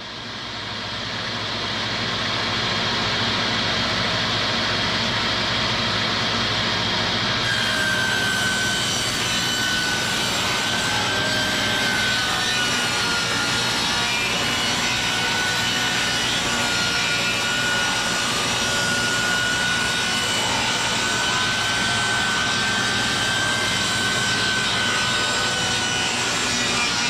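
Shopsmith Mark V 520 powered saw spinning up over the first few seconds, then running steadily. From about a third of the way in, a higher hiss and a wavering whine join as the blade rips cedar fence pickets into boards.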